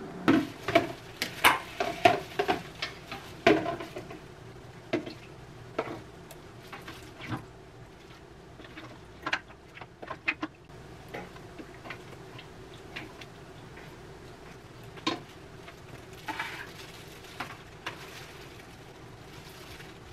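Kitchen utensils clinking and knocking against a stainless-steel pot and plastic food containers as food is moved into them with tongs and a ladle: a run of sharp clicks and clatters, thickest in the first four seconds, then scattered ones.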